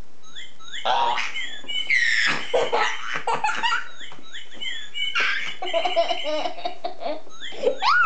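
Toddler laughing hard in two long fits. Each fit is set off by a few short, high squeaky chirps voiced for a parrot hand puppet.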